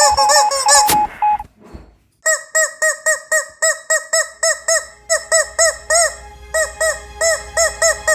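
Rubber chicken squeaky toy squeezed over and over in quick succession, each squeak a short honk that rises and falls in pitch, in the rhythm of speech. A burst of squeaks in the first second and a half, a brief pause, then a rapid run of about two or three squeaks a second.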